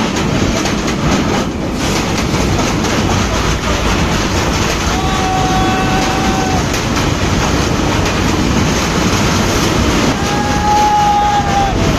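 Passenger train passing close by: a loud, steady rumble and clatter of its carriages' wheels on the rails. Twice a long, steady high tone sounds over it.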